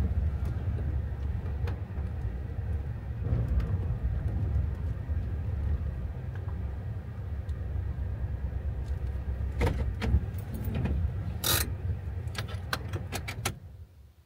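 Cabin sound of a Toyota Hiace camper van: a steady low engine and road rumble as it drives and pulls up. In the last few seconds come several sharp clicks and a jingle of keys, then the engine is switched off and the rumble cuts out suddenly near the end.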